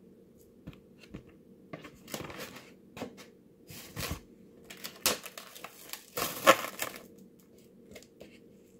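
Clear plastic wrap crinkling and rustling as it is pulled tight and pressed around a foam tray of steak, in several separate bursts, the loudest about two thirds of the way through.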